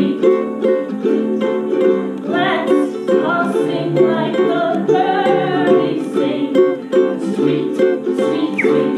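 Ukulele strummed in a steady rhythm, playing chords.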